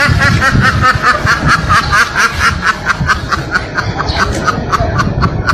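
A person laughing hard and without a break, in rapid, even bursts of about five a second, cutting off suddenly at the end.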